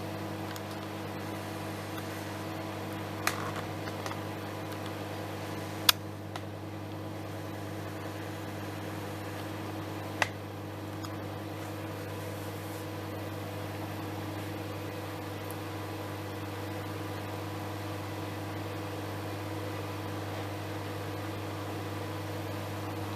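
Microwave oven running with a steady electrical hum. A few sharp clicks cut through it, the loudest about six seconds in.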